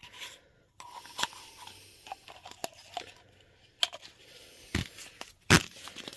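Small hand tools being handled and set down: scattered clicks and knocks with light rustling, the loudest knock about five and a half seconds in.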